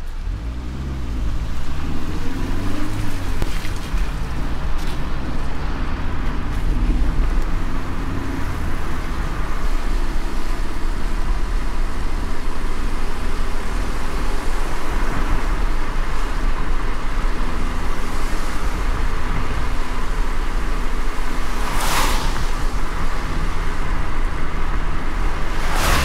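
Car driving in heavy rain, heard from inside the cabin: a steady engine and road rumble with tyres hissing on the wet road and rain on the windscreen. The engine note shifts in pitch in the first few seconds. A brief whoosh of spray comes near the end.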